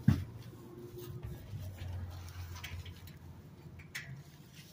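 A single dull thump just after the start, then a low steady hum and a few faint clicks.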